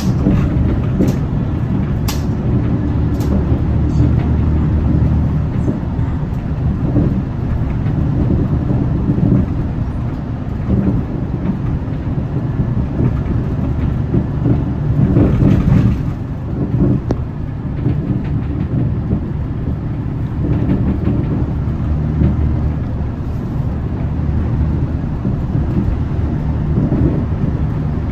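Hyundai Green City diesel bus driving, its engine running with the load swelling and easing, louder for a moment around the middle. A few sharp clicks about once a second near the start.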